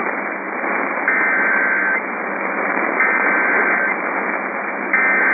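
Emergency Alert System SAME header: three bursts of warbling digital data tones, about a second each and about two seconds apart, the third starting near the end. They sound over the steady hiss of a weather radio receiver.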